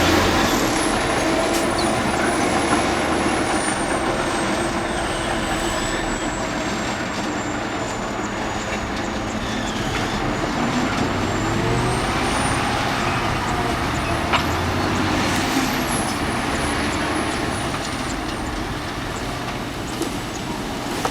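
Heavy diesel earthmoving machinery, a bulldozer and dump trucks, running and working continuously, with a thin high whine that rises and falls in pitch a couple of times.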